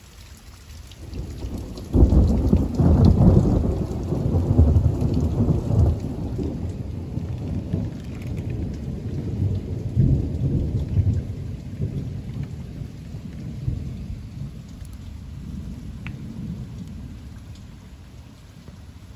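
Loud thunderclap over steady heavy rain. The thunder builds briefly, breaks with a sharp crack about two seconds in, and rolls on as a low rumble. The rumble swells again around ten seconds, then dies away.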